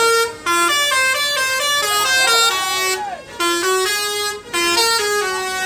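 Bus 'telolet basuri' musical air horn playing a song melody as a run of held notes stepping up and down. There are short breaks about half a second in, around three seconds in and around four and a half seconds in.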